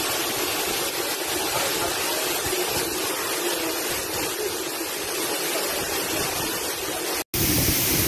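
Waterfall plunging onto rocks: a steady, even rush of falling water. About seven seconds in it breaks off abruptly, and a louder, brighter rush of water takes over.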